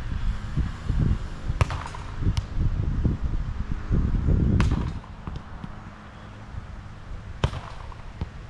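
Sharp slaps of hands and arms striking a volleyball, four in all a second or more apart, over a low rumble.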